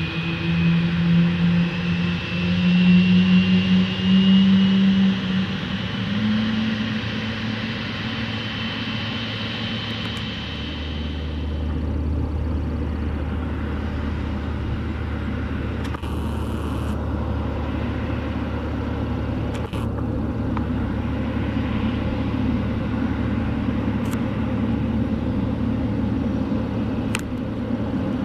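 General Electric GE90 turbofan on a Boeing 777 freighter spooling up during engine start: a rising whine that steps up about six seconds in, then fades into a steady low rumble.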